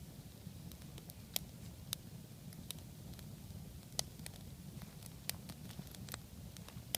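Log-crib campfire burning, with irregular sharp crackles and pops, a few a second, over a low steady rumble.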